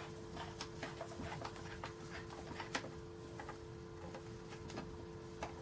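Faint, scattered small metal clicks and ticks of nuts being screwed onto bolts by hand and tools being handled, over a steady low hum.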